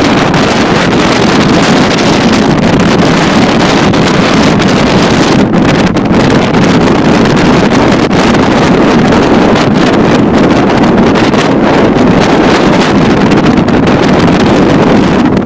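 Motorcycle running at road speed, its engine under heavy, steady wind noise on the microphone.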